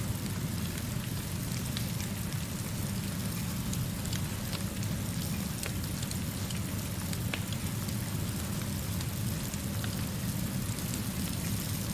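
Steady rainfall: an even hiss with a heavy low rumble beneath it, dotted with scattered sharp little ticks of drops.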